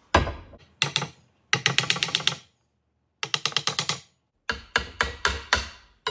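A claw hammer tapping the aluminum jet pump housing of a Yamaha Waverunner III to seat its sections together on their dowel pins. Two single knocks come first, then three quick runs of ringing metallic taps at about ten a second.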